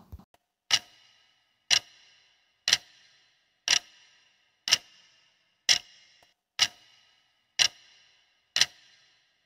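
Clock-tick sound effect of a countdown timer: nine sharp ticks, one a second, each with a short high ringing tail.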